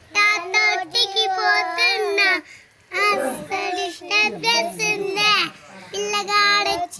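A young girl singing a song unaccompanied, in held, sung notes, with a short break about two and a half seconds in.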